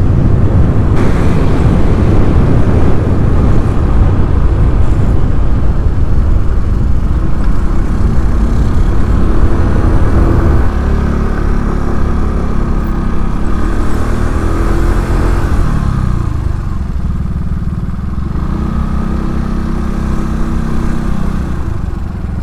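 Motorcycle riding along, its engine running under heavy wind noise on the microphone. About halfway in it slows and the engine's steady note comes through more clearly, and the sound eases a little near the end.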